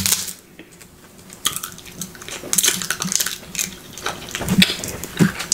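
Crab leg shells cracking and snapping in the hands as the meat is pulled out: a string of sharp, irregular crackles and crunches.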